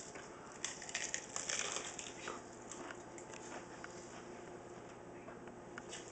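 Dry whole red chili peppers being chewed: faint, irregular crunching and crackling.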